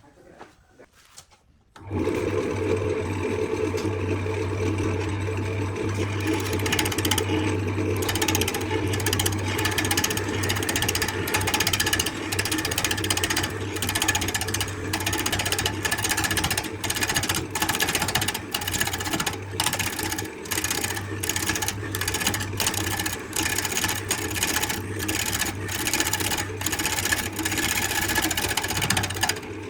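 Electric power tool switched on about two seconds in and running steadily as it works wood, with many brief dips in its sound from the middle onward.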